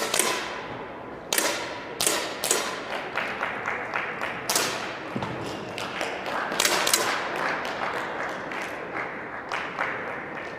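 10m air pistol shots going off one after another from several shooters, each a sharp crack with a ringing tail in a large hall, with lighter clicks and taps in between.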